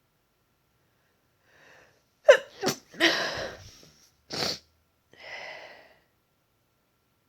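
A congested woman sneezing in a quick fit: a faint breath in, then a loud, sharp sneeze about two seconds in, followed closely by several more, the last one weaker and breathier.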